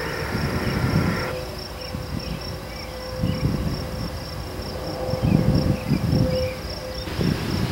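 Insects chirping in a steady, evenly pulsed high trill, with low rumbling that swells and fades several times underneath.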